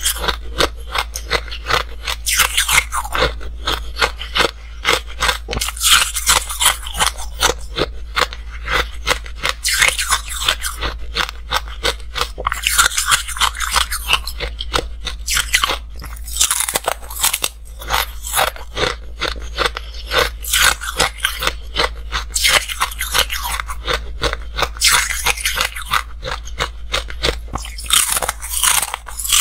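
Close-miked crunching of hard ice being bitten and chewed: a long pink ice stick cracking between the teeth, heard as many sharp crunches in quick succession, in clusters with short pauses between bites.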